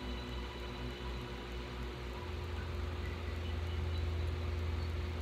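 Small electric pump motor humming steadily while it feeds dye through a hand-held nozzle; the low hum grows louder about two seconds in.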